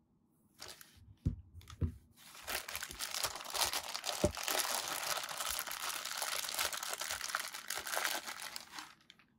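Two light knocks about a second in, then a clear plastic bag crinkling steadily as hands rummage in it and lift out figure parts. The crinkling stops shortly before the end.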